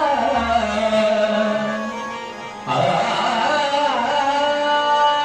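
Devotional bhajan music: long held pitched notes, with a fresh, louder attack a little under three seconds in.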